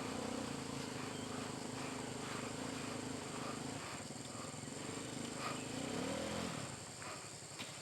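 A motorcycle engine running steadily, rising in pitch and falling back about six seconds in, then cutting out. A steady high insect drone runs underneath.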